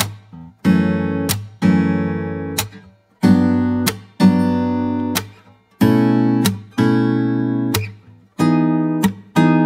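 Background music on acoustic guitar: chords strummed about once a second, each ringing out and fading before the next, with the chord changing from strum to strum.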